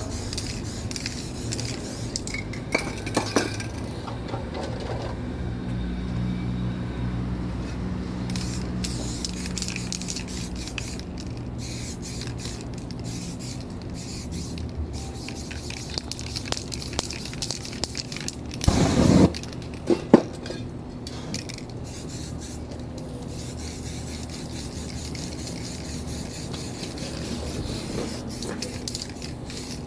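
Aerosol spray-paint cans hissing in short bursts onto poster board, with hands rubbing and scraping paper stencils and a metal bowl being shifted on the board. One louder noisy burst comes about two-thirds of the way through, followed by a couple of clicks.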